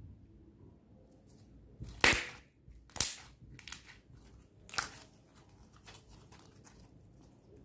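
Clear slime being squeezed and stretched by hand, giving sharp pops as trapped air bursts: a loud pop about two seconds in, another about three seconds in and one near five seconds, with softer clicks and crackles between.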